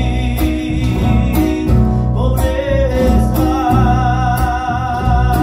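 Live band playing with acoustic guitar, bass, electric guitar and drums at a steady beat, with a male voice singing; a little past halfway the singer holds one long note with vibrato.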